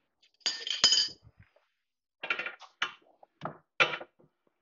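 Steel wrenches clinking against the ball joint pinch bolt and knuckle while the bolt is held and tightened. There is one ringing metal clink about half a second in, then several lighter clinks.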